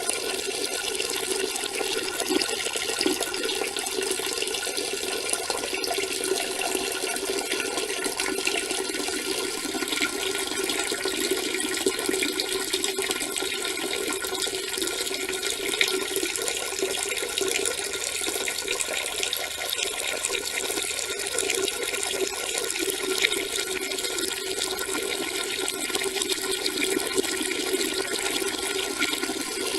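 A steady, unbroken stream of urine splashing into water.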